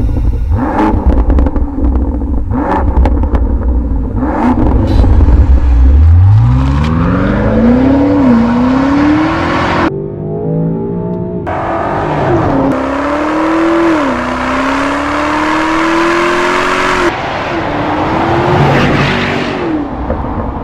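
2024 Range Rover Sport SV's 4.4-litre V8 through a QuickSilver stainless-steel sports exhaust, driven hard. A deep rumble with several sharp pops gives way to hard acceleration, the engine note climbing and dropping back at each gear change, several times over.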